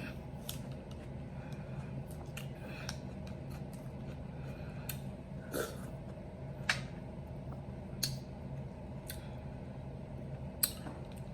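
Someone eating watermelon topped with fruit: about ten scattered short, crisp, wet bite and mouth clicks over a faint steady hum.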